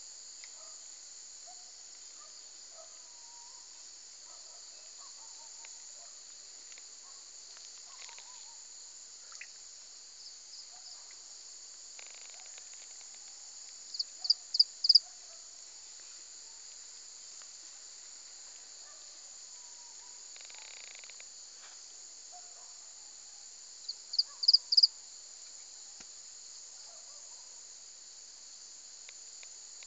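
Steady high-pitched chorus of crickets or similar insects. Two short runs of about five loud, quick, high chirps come about halfway through and again near the end, with faint scattered calls lower down.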